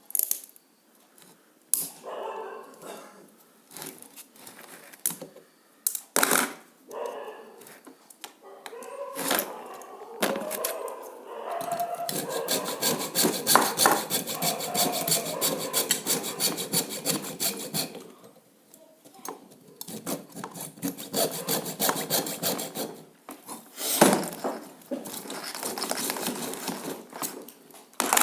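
A hand saw cutting in long runs of rapid back-and-forth strokes, with scattered knocks and handling clatter in between.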